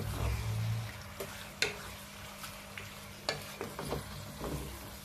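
Beef chunks being stirred with a wooden spatula in a hot pot of oil and fried spices. There is a light sizzle, and the spatula knocks against the pot, sharpest about one and a half and three and a quarter seconds in.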